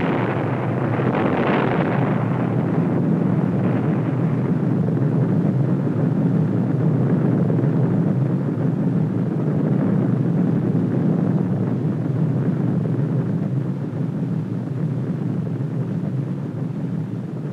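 Atomic bomb explosion on an old film soundtrack: a sudden blast that rolls on into a long, steady low rumble, easing a little near the end.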